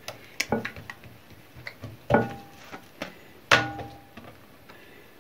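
Oiled msemen dough being patted and pressed flat by hand on a glazed ceramic dish: a few sharp knocks where the hands strike the dish, the louder ones leaving a short ring, with fainter taps between.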